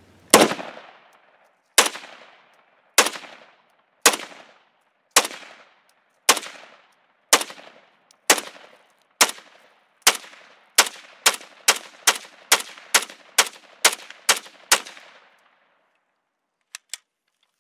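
CZ 805 Bren pistol firing .223 rounds in semi-auto, about twenty shots, each with a short echoing tail: slow aimed fire at about one shot a second for the first half, then quicker fire at two to three shots a second. Two faint clicks near the end.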